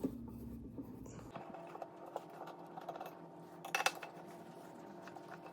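Faint clicks and light taps of a screwdriver working at the screws of a headlight ballast and handling the plastic headlight housing, with a brief louder clatter about four seconds in.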